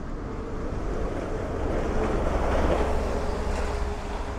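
Low rumbling outdoor noise of wind on the microphone and passing road traffic, swelling to a peak about halfway through and easing off, with a faint steady hum underneath.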